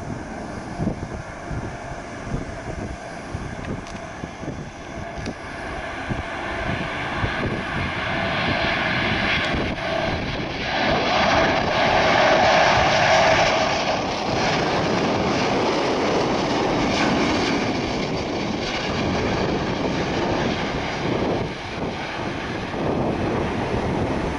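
Boeing 747-8I on final approach, its four GEnx-2B turbofans at approach power. The rushing jet noise builds as the jumbo nears and is loudest about halfway through, with a steady humming tone at the peak. It stays loud as the aircraft sinks toward touchdown.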